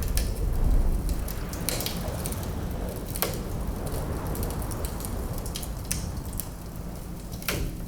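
Wood fire crackling in a fireplace: a few sharp pops at irregular intervals, every second or two, over a steady low rumble.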